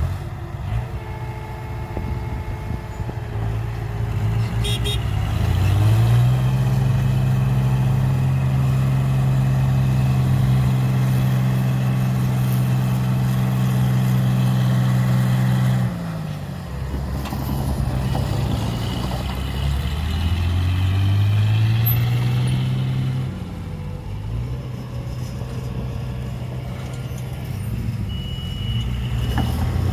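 Heavy diesel engine of working earthmoving machinery revving up about six seconds in and holding high revs for about ten seconds, then dropping back. It revs up again briefly before settling to a lower run near the end.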